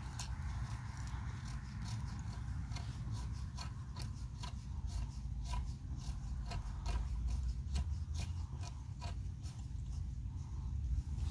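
A nut being wound onto a metal bolt through a wooden trellis batten fixed to a wall: irregular metallic clicks and scraping, a few a second, over a steady low rumble.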